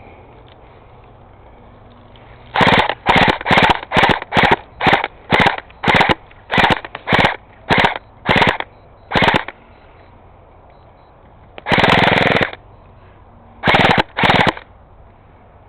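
Airsoft rifle firing close by in a quick string of short bursts, about two a second, from a couple of seconds in until about nine and a half seconds. Then comes one longer burst of nearly a second, and two more short bursts near the end.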